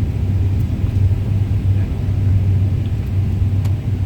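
Steady low drone of an airliner cabin in flight on descent: engine and airflow noise, with a couple of faint ticks.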